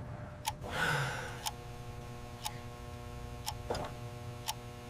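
A clock ticking about once a second, with a steady low hum underneath.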